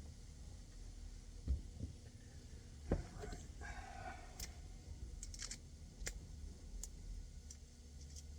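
Light clicks and a couple of dull knocks from hands and tools working at an HVAC unit's control board, over a low steady hum.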